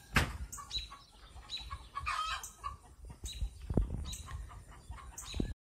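Chickens clucking and calling, with two loud knocks on the microphone, one just after the start and one about four seconds in. The sound cuts off suddenly near the end.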